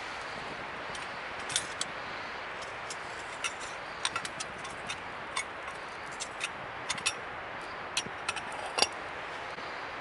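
Light metallic clicks and taps over a steady hiss as a brass spirit burner is handled. The loudest click comes near the end, as the cap goes onto the burner to put out the flame.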